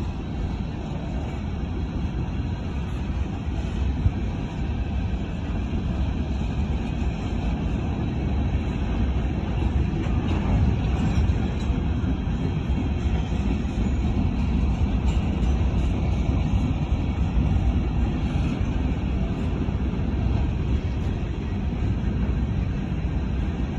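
Coal train hopper cars rolling past: a steady low rumble of steel wheels on the rails, with one sharp knock about four seconds in.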